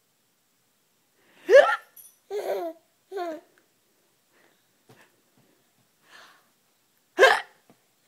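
Two fake hiccups from an adult, one about a second and a half in and another near the end, each a short loud squeaky gulp. After the first, a small child gives two short laughs.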